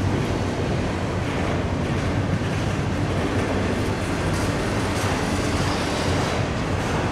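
Double-stack intermodal freight train's loaded container well cars rolling past close by: a steady rumble of steel wheels on the rails.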